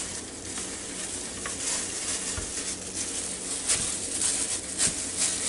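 Disposable plastic food-handling gloves crinkling and rustling while rinsed, wet raw chicken wings are lifted from a plastic bowl and laid on paper towels, with a few light ticks and taps.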